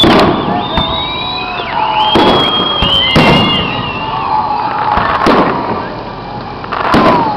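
Fireworks show: about five loud bangs of aerial shells bursting, a second or two apart, with high whistling tones that slide up and down between them.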